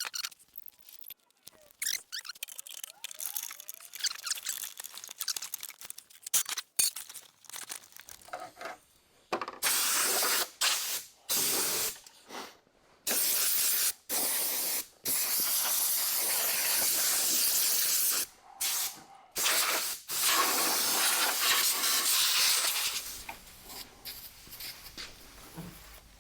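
A pressurised spray hisses in repeated bursts of one to five seconds each, starting and stopping sharply, while a seat base is being cleaned. It comes after several seconds of light handling clicks.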